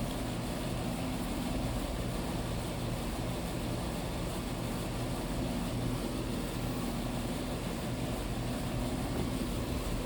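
Steady low mechanical hum over a background of outdoor noise.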